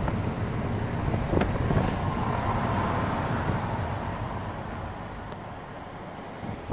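Steady road and engine noise of a moving vehicle, heard from on board, growing quieter over the last few seconds, with a sharp click at the very end.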